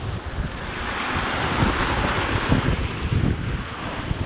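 A sea wave surging and washing over rocks: a hiss that swells about a second in and then eases. Wind buffets the microphone throughout.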